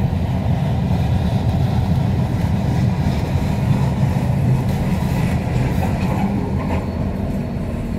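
Kansas City Southern de México freight train rolling past: a steady low rumble of wheels on the rails. A diesel locomotive goes by close about halfway through, and the rumble eases slightly near the end.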